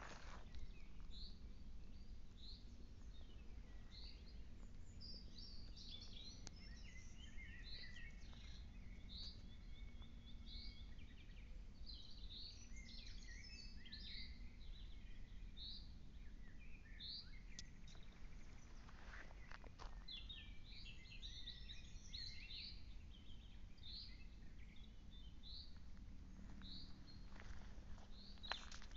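Woodland birds singing and calling, faint: a short high note repeated about once a second, with bursts of quicker twittering chirps between.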